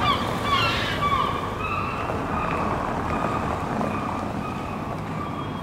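Town-street ambience: a steady hum of traffic, with thin high tones and quick chirps over it, busiest in the first second.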